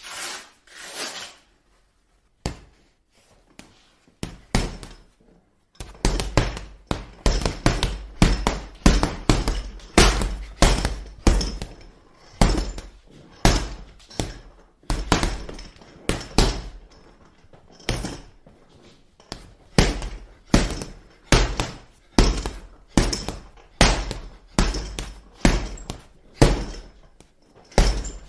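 Punches landing on a punching bag: a few scattered hits, then from about six seconds in a steady run of heavy thuds, about two a second, with brief pauses.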